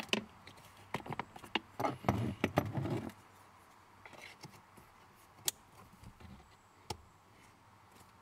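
Hands handling a plastic accelerator pedal and position sensor assembly. A cluster of clicks and knocks comes about two to three seconds in, then a few single sharp clicks as the wiring connector is pushed onto the pedal's sensor.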